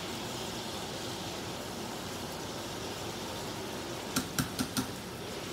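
Teriyaki-marinated striploin steaks frying in a pan of bubbling marinade and oil, a steady sizzle, with a quick run of sharp clicks about four seconds in.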